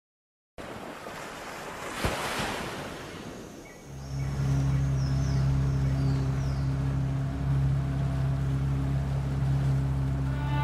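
Ocean surf and wind ambience swelling to a rushing peak about two seconds in and easing off, then a steady low droning note holds under it from about four seconds in. Guitar music comes in near the end.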